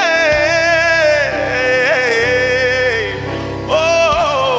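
Live gospel worship music: a lead melody of long held notes with vibrato, rising to a new held note near the end, over a steady sustained accompaniment.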